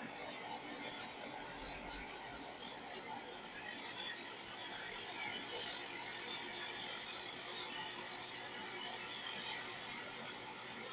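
Claas Jaguar 960 self-propelled forage harvester running at working speed, chopping corn for silage. It makes a steady mechanical hum and whir, with a brief louder burst about halfway.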